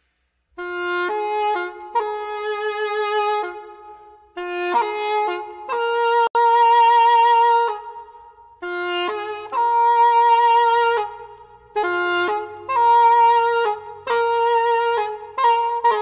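Music: a solo wind instrument plays a slow melody of held notes with vibrato, in phrases broken by short pauses. Faint low accompanying notes come in about halfway through.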